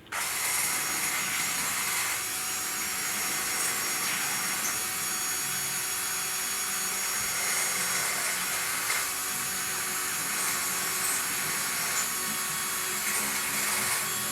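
Handheld power tool running steadily, its motor whine under a continuous hissing, abrasive noise, as used for deburring wing parts. It starts abruptly right at the beginning.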